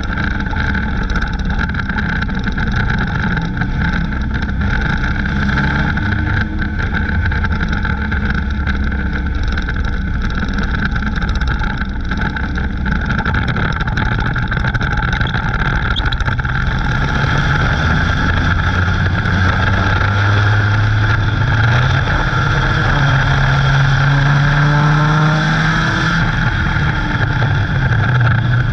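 Dirt-track stock car engine running hard under racing load, heard from inside the cockpit along with the pack of cars around it. The engine note holds steady, then climbs in pitch over several seconds near the end as the car accelerates, drops sharply, and starts to climb again.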